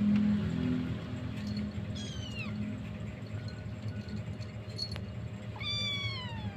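Kitten mewing twice, high-pitched squeaks that fall in pitch, about two seconds in and near the end, while a bigger cat wrestles it. A steady low hum runs underneath.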